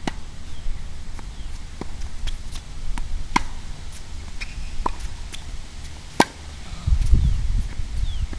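Tennis ball struck by a racket in a rally, sharp pops about three seconds apart, with softer ball bounces on the hard court in between. A low rumble runs underneath and swells near the end.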